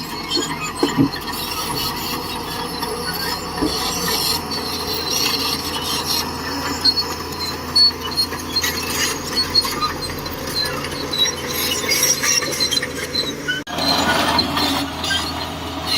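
Shantui DH17C2 crawler bulldozer working: its diesel engine running under a steady hum while the steel tracks squeal and clank.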